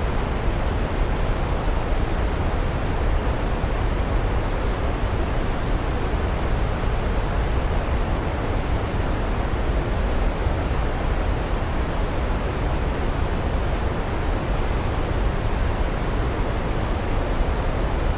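Waterfall rushing steadily: an even, unbroken hiss of falling water, deepest and strongest in the low range, with no distinct calls or knocks standing out.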